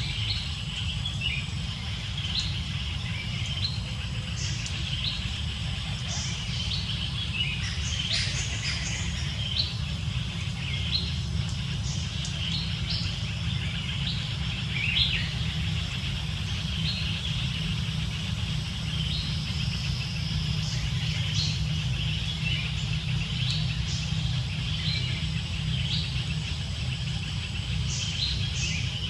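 Birds chirping in many short, scattered high calls over a steady low rumble.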